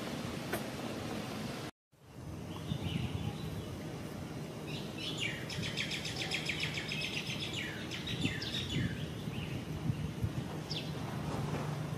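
Outdoor ambience with a bird chirping in a rapid trill for a few seconds in the middle. The sound cuts out completely for a moment just under two seconds in, and a low steady hum runs underneath toward the end.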